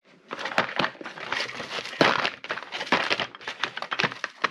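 Rummaging through a container of Torx driver bits: small hard pieces clicking and rattling against each other in a quick, uneven clatter.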